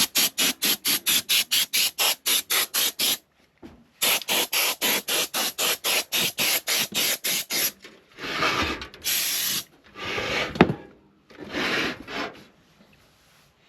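Fast back-and-forth rubbing or scrubbing on a hard surface, about five strokes a second in two runs, then three slower, longer rasping strokes.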